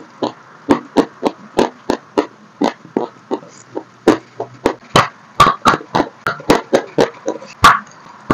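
Dry chalk being chewed close to the microphone: a run of sharp, crunchy cracks, about three a second, thinning briefly about three seconds in, with a bite into a chalk stick and the loudest crunch near the end.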